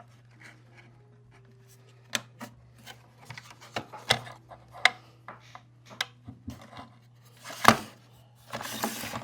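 Small plastic clicks and taps as a power connector is plugged in and the remote controller's plastic shell parts are handled, with a louder knock at about seven and a half seconds and a rustling scrape near the end, over a faint steady hum.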